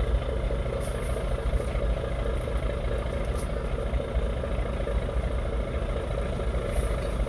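A ship's diesel engine running steadily at idle: an even low hum that does not change.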